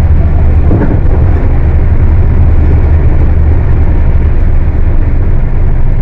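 Volkswagen 17-230 OD bus's diesel engine running loudly under way, a steady deep drone.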